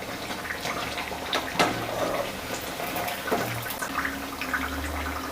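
Batter-coated raw banana slices (bajji) deep-frying in hot oil in a kadai: a steady sizzle with scattered sharp crackles.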